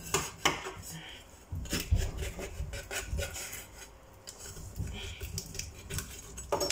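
Kitchen knife scraping and cutting at a whole tilapia's fins in a stainless steel sink: irregular rasping scrapes and clicks, with a few dull knocks near the middle.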